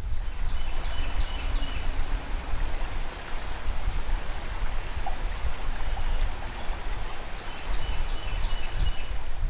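Flowing river water, a steady rushing noise with a deep rumble underneath. A bird chirps in a short series about a second in and again near the end.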